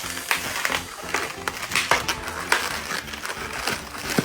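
Latex twisting balloons rubbing and squeaking against each other and the fingers as they are handled and twisted: a quick, irregular run of short squeaks and crinkles.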